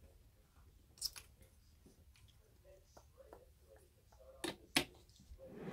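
Quiet room with a few faint, sharp clicks: one about a second in and two close together near the end.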